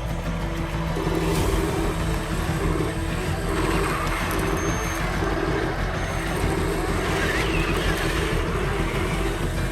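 Radio-controlled construction vehicle running, a steady, pulsing engine-like drone.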